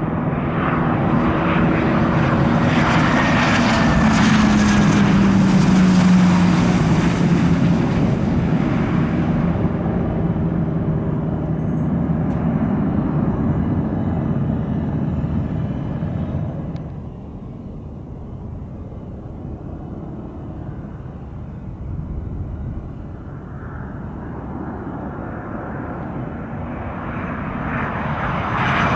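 Jet engines of a landing Bombardier Global business jet passing close by, with an engine tone that falls in pitch and a high whine that fades out after about ten seconds. The noise carries on through the runway rollout and drops off a bit over halfway through. Near the end a second business jet, a Cessna Citation X on final approach, grows louder.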